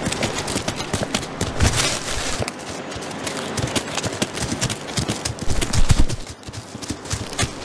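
Arctic wolf pups' paws pattering and scuffing over dry, stony tundra as they run: a dense, irregular run of quick thuds.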